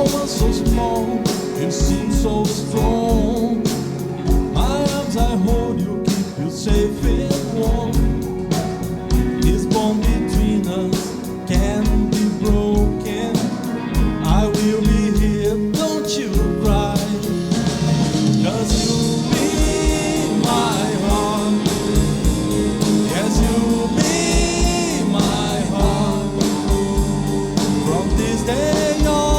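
Live band playing a pop ballad: a sung vocal over electric guitars, bass guitar, keyboard and a drum kit keeping a steady beat.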